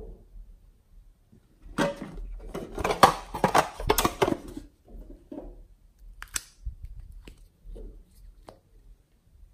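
Stiff plastic blister packaging crinkling and crackling as it is handled and opened, for about three seconds, followed by a few separate clicks as small plastic clay tubs are opened.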